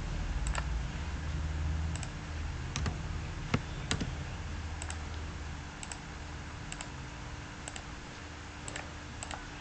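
Computer mouse clicking, single and paired clicks roughly once a second, over a steady low hum and hiss.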